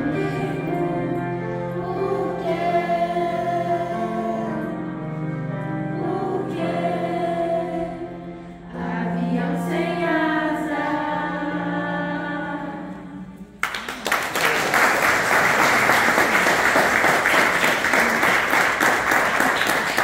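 Children's choir singing, the song ending about two thirds of the way through; then an audience applauds, louder than the singing.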